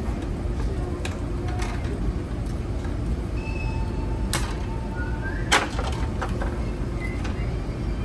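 Hand wire strippers cutting and stripping fire-alarm wire, giving a few sharp clicks, the loudest about five and a half seconds in, over a steady low rumble of machinery.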